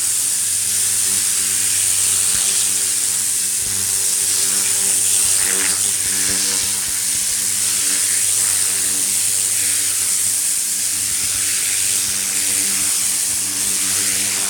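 Greenworks 1700 PSI electric pressure washer running steadily, its motor and pump humming under the loud hiss of the spinning turbo nozzle's spray on a fabric seat.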